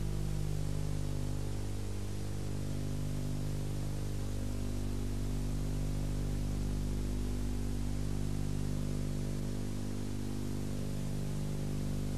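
Steady electrical hum with a stack of evenly spaced overtones under a constant hiss: the noise of an old videotape transfer, with no game sounds standing out.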